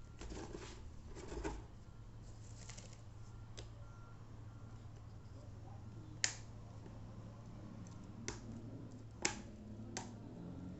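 A few sharp clicks and light knocks from the plastic parts of an electric fan being handled, two of them louder, over a steady low hum.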